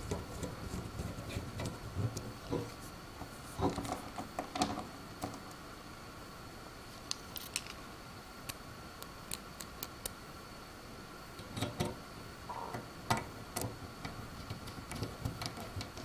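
Faint, scattered clicks and taps of a precision screwdriver and tiny screws being handled on a CPU cooler's metal mounting plate, with a faint steady electrical whine underneath.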